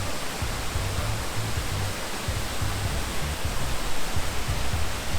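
Steady rushing of a creek and waterfall, with background music and its bass line laid over it.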